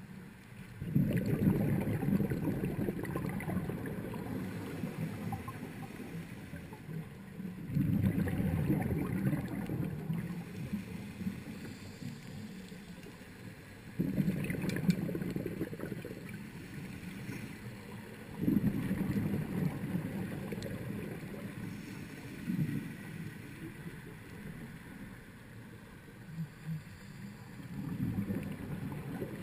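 Scuba diver's regulator exhaust bubbles, heard underwater through the camera's waterproof housing: a low bubbling rush that starts suddenly with each breath out and fades over a few seconds, about five times, roughly every five to six seconds.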